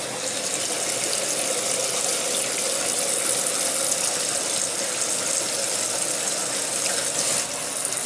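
Water rushing steadily into a Maytag Neptune front-load washer through its dispenser as the inlet valve fills it during the service-test fill step, with a brief drop in the flow about seven and a half seconds in as the fill switches over.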